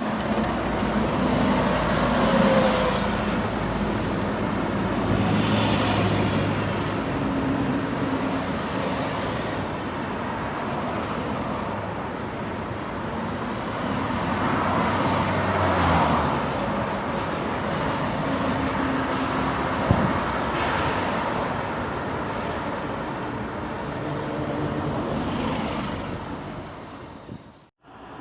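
Street traffic ambience: a steady wash of road noise with cars and engines swelling past every few seconds. There is one sharp knock about two-thirds of the way through, and the sound cuts off suddenly just before the end.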